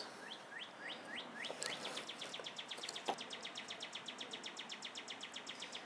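Outdoor wildlife calling: a quick series of short down-slurred bird chirps in the first second or so, then a steady, rapid, high-pitched pulsing trill of about ten pulses a second that runs on, typical of a calling insect.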